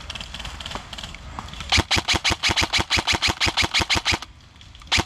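Airsoft gun firing a full-auto burst: sharp, evenly spaced shots at about ten a second for roughly two and a half seconds, starting a little under two seconds in.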